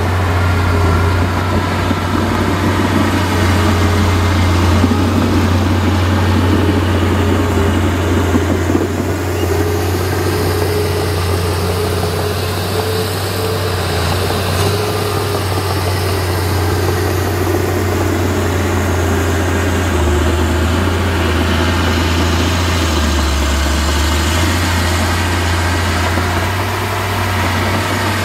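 Heavy diesel engine of earthmoving machinery running steadily with a deep, even drone. Its low note shifts lower for a few seconds about two-thirds of the way through.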